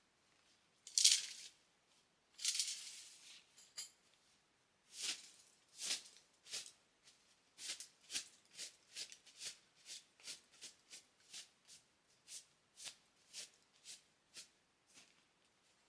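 Footsteps crunching on gravel and dry ground, a few scattered steps and a longer scuff at first, then steady walking at about two steps a second from about five seconds in.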